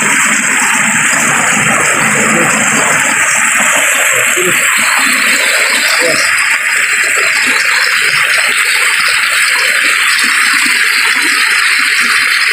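Shallow rocky stream rushing and splashing over boulders in a steady, loud rush of water.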